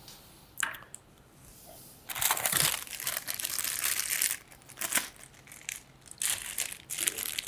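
Clear plastic bag crinkling and rustling in the hands as it is opened, in several bursts, the longest lasting about two seconds.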